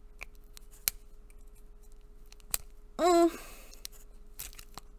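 Scissors snipping open a small packet: a few sharp, separate snips. A short hummed vocal sound, about three seconds in, is louder than the snips.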